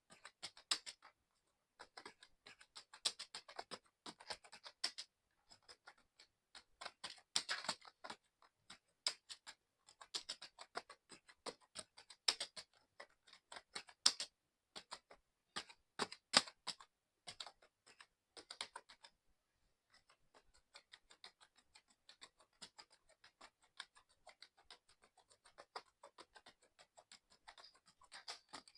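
Fast, continuous typing on a mechanical keyboard: rapid runs of key clicks with short pauses. The typing stops for a moment about two-thirds through, then carries on more softly.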